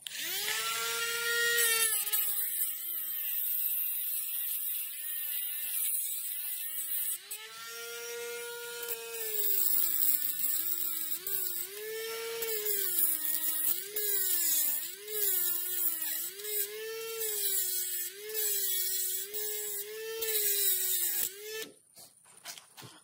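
Dremel rotary tool with a thin cut-off wheel running as a high whine, cutting metal. Its pitch sags each time the wheel bites and recovers when it is eased off, about once a second in the second half, and the motor stops near the end. The footage is sped up, which makes the tool sound faster than the low speed it is run at.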